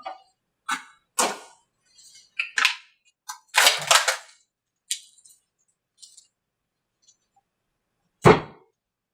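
Fiberglass molds being pried apart: irregular sharp cracks, clicks and knocks, with a longer rasping crack about four seconds in and a heavy thump near the end.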